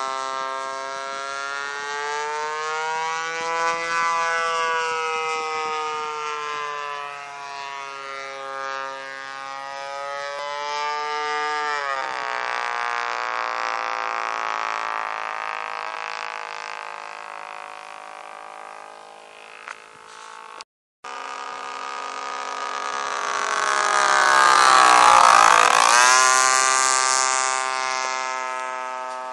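Engine of a radio-controlled model airplane in flight. Its whine rises and falls in pitch as the plane circles. About 25 seconds in it passes close: it grows loudest, and its pitch drops as it goes by.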